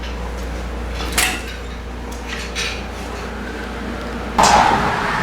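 Metal tools and parts clinking and clattering: a sharp clink about a second in, a few light ticks, then a louder clatter near the end, over a steady low hum.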